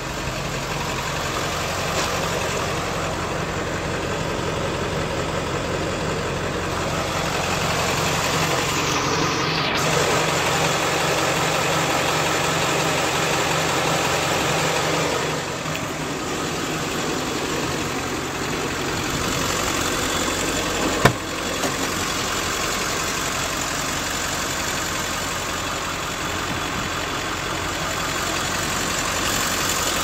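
A 2000 Blue Bird Mini Bird bus's engine idling steadily, with one sharp click about two-thirds of the way through.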